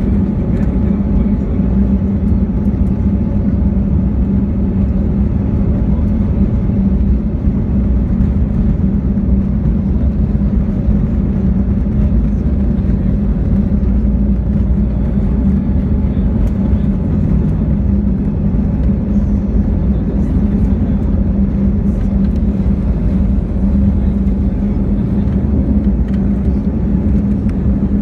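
Airbus A320neo on its takeoff roll, heard in the cabin over the wing: the engines run at takeoff thrust as a loud, steady deep drone with a hum, mixed with rumble from the runway.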